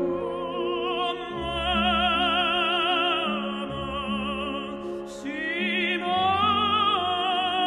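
Operatic singing with wide vibrato over sustained low orchestral notes. About five seconds in, the voice climbs to a higher held note.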